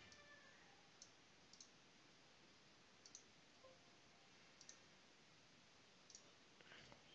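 Near silence broken by about five faint computer mouse clicks, spaced a second or more apart.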